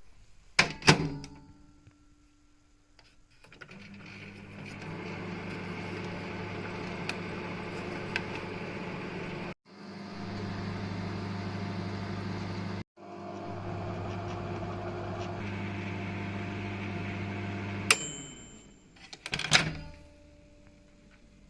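Microwave oven in use: a door clack, then the oven running with a steady low hum that breaks off abruptly twice. Near the end a sharp ding-like chime sounds, followed by the clack of the door opening.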